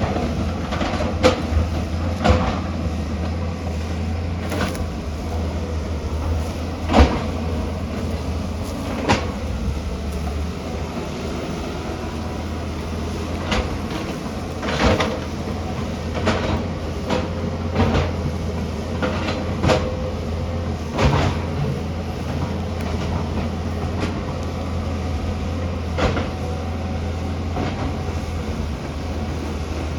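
Tata Hitachi excavator's diesel engine running steadily under a scatter of sharp clanks and knocks, the loudest about seven seconds in.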